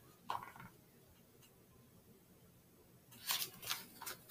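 Mostly quiet, then a picture book's paper page being turned and rustling, starting about three seconds in.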